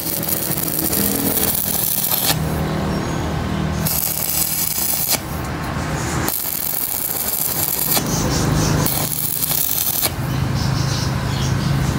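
Arc welding with a stick electrode: the arc crackles and hisses in several stretches that start and stop abruptly, over a steady low hum.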